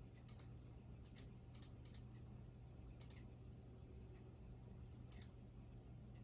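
Faint computer mouse button clicks, mostly in quick pairs like double-clicks, spread through a few seconds over a low steady hum.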